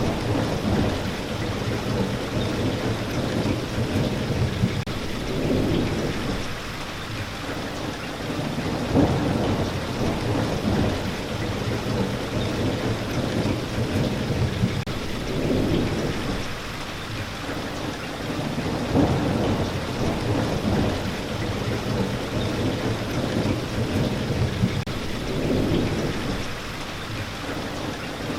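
Steady rain falling, with low rolls of thunder swelling and fading every few seconds.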